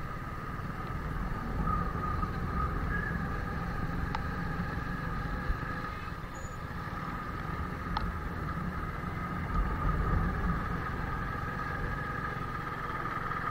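Motorcycle engine running steadily as the bike rides slowly along a rough road: a low rumble with a steady whine above it. Two sharp clicks come through, about four seconds and eight seconds in.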